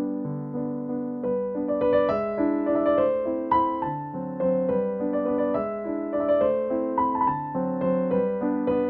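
Background piano music: a melody of single notes over held lower notes.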